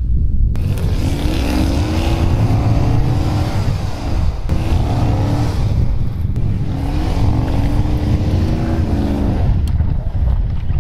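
Lifted pickup truck's engine revving hard under load, its pitch climbing in two long pushes over a constant heavy rumble, as the truck ploughs into deep snow drifts and gets stuck.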